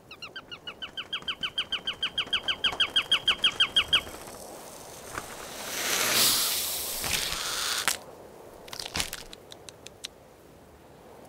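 A bird's rapid call of short, downward-sweeping notes, about seven or eight a second, growing louder for about four seconds and then stopping abruptly. A gust of wind follows, swelling and fading over about two seconds, then a few faint clicks.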